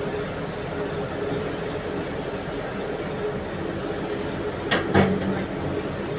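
Heavy diesel engine of mining equipment running steadily, with two sharp metallic knocks a fraction of a second apart about three quarters of the way in.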